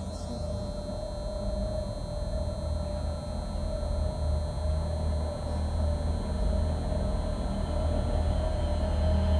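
A low, steady rumbling drone with a held mid-pitched tone over it, slowly growing louder.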